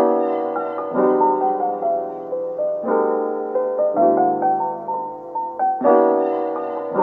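Background lo-fi music: mellow piano chords struck every second or two with a slow melody over them.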